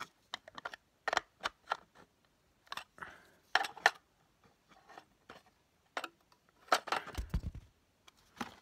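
Small hard plastic parts and packaging being handled while fitting a magnetic levitator together: a scattered series of sharp clicks and taps, with a dull low thump about seven seconds in.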